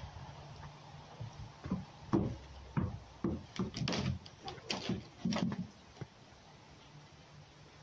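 A quick irregular run of about a dozen knocks and thumps, from about two to five and a half seconds in, as a fox scuffles after a tennis ball in its wire-mesh pen.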